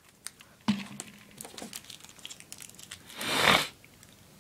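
Tape being handled and wrapped around a spark plug, crinkling, with one loud rasping rip of tape pulled off the roll about three seconds in.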